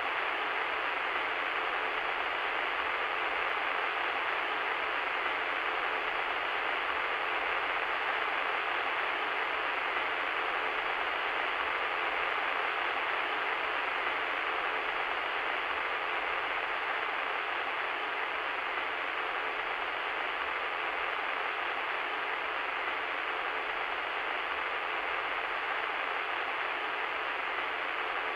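Radio static: a steady, unbroken hiss of interference noise, band-limited like a radio receiver's speaker, with no voice or tone coming through. It is a sound effect made in Ableton Live.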